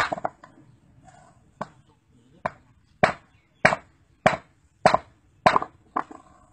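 A steel hammer striking a rock held on a concrete slab, about nine sharp blows knocking pieces off the stone. The first blow is the loudest; after two lighter, spaced strikes the blows come steadily about every half second.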